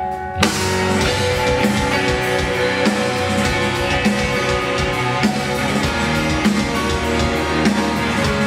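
Live rock band playing an instrumental passage, with drums and electric bass guitar. The full band comes in hard about half a second in and then plays steadily on a driving beat.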